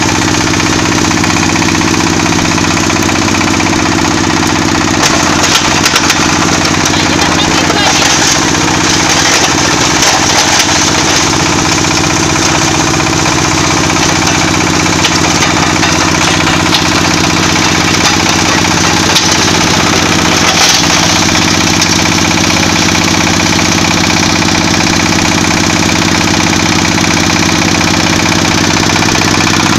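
Small single-cylinder diesel engine running steadily under load, driving a hammer crusher by belt. Bursts of sharp clatter come through about 5 to 11 seconds in and again about 21 seconds in.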